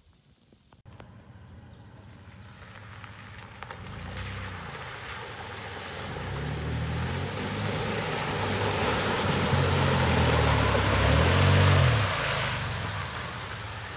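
Toyota 4Runner driving through a deep muddy puddle, water splashing and sloshing around it while the engine revs up and down in several surges. It grows louder as the truck approaches, is loudest as it passes close near the end, then starts to fade.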